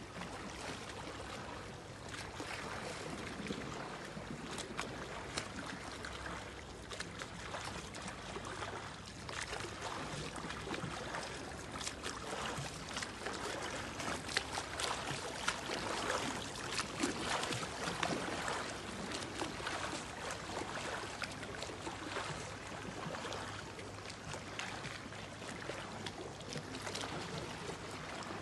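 Sea water splashing and lapping as a swimmer does front crawl, arm strokes slapping the surface over a steady wash of water. The splashes are loudest about halfway through.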